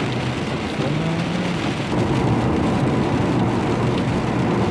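Car driving on a wet road in rain, heard from inside the cabin: steady tyre and road noise with a low engine hum, and rain on the windscreen.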